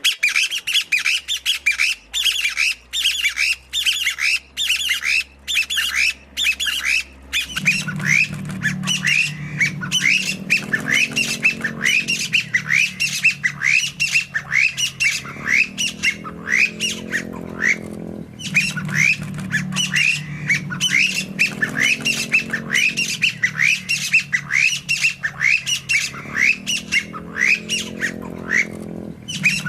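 Chinese bamboo partridge calling: long runs of loud, sharp, falling notes, about three a second, with brief pauses between runs. A low hum runs underneath from about a quarter of the way in.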